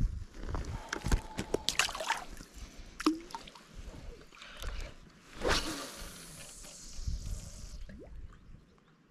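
Lake water sloshing and dripping at the shore, mixed with scattered small clicks and rustles from a spinning rod and fixed-spool reel being handled, and bursts of low wind rumble on the microphone.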